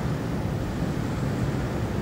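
City ambience: a steady low rumble of traffic with no distinct events.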